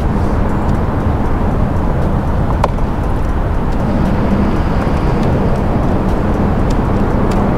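Steady low rumble of road traffic crossing the causeway bridge deck overhead.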